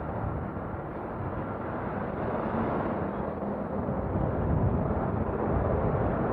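Steady rush of wind on the camera microphone while riding a bicycle, with city traffic beneath it, growing a little louder toward the end.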